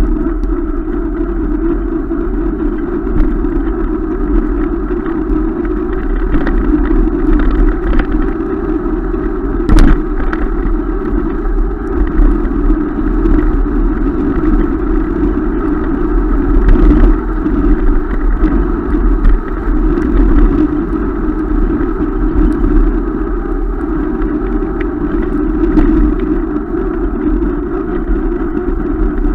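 Wind buffeting the microphone and tyre rumble from a mountain bike ridden on an asphalt road, with a couple of sharp knocks, the loudest about ten seconds in.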